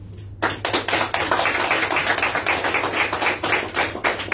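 A small audience applauding, the clapping starting about half a second in and beginning to thin out near the end.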